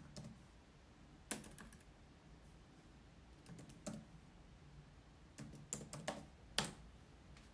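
Typing on an Acer Chromebook 514 laptop keyboard: soft key clicks in small scattered groups, a few keystrokes at a time with short pauses between.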